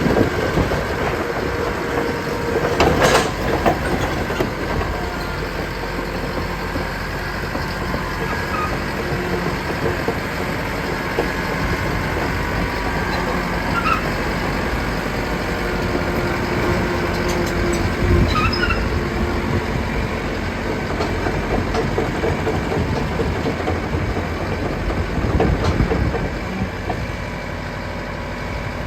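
Caterpillar 963 crawler loader working: its diesel engine runs steadily under the clatter of steel tracks, with a few knocks and brief squeaks from the machine.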